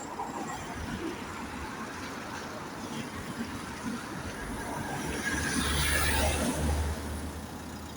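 A motor vehicle passes close by on the road: engine and tyre noise build to a peak about six seconds in, then fade.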